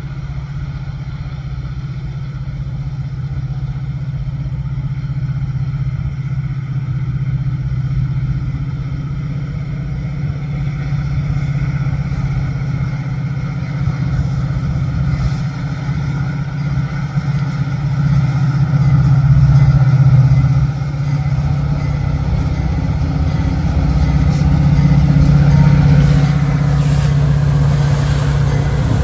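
Diesel locomotive engine running with a steady low drone that slowly grows louder, swelling around two-thirds of the way through and again near the end.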